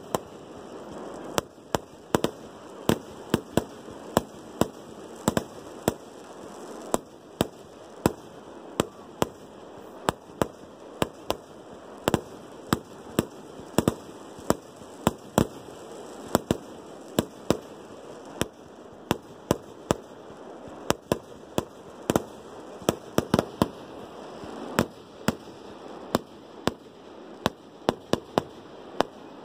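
Fireworks going off: a rapid, irregular string of sharp bangs, roughly two a second, over steady background noise.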